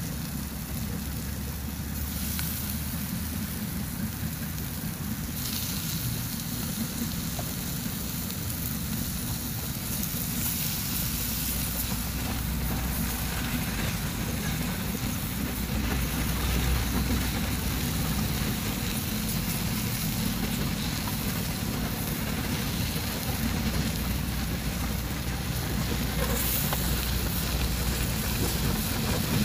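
Pieces of spotted-dove meat frying in spice paste in a small pan on a portable gas stove: steady sizzling over the low, even roar of the burner flame, as the meat is stirred.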